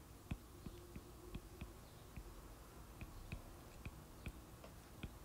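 Faint, irregular taps and clicks of a stylus tip on a tablet's glass screen, a few a second, as short hatching strokes and letters are written.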